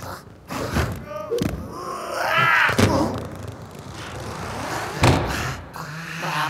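Cartoon thuds and knocks as a large canvas painting is shoved up off the floor and set upright against a wall. The loudest thud comes about five seconds in. Between the thuds, the Rabbids let out short, high-pitched vocal noises.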